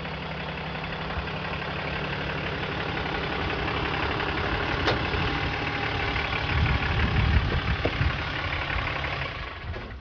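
The 6.7-litre Cummins turbo diesel of a Ram 3500 dually pickup running as the truck rolls up and stops, growing louder about two-thirds of the way through. It stops near the end.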